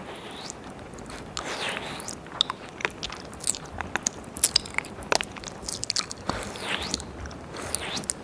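Wet mouth sounds close to a binaural ear microphone: tongue licks and lip smacks with many sharp wet clicks and soft swells of breathy slurping every two to three seconds.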